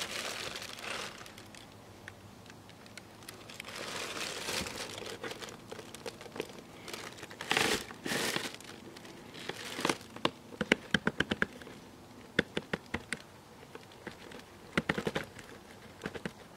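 Plastic bag crinkling and rustling as a Parkside welding helmet is handled, then from about ten seconds in, bursts of sharp plastic clicks, several a second, as the helmet's headgear is worked.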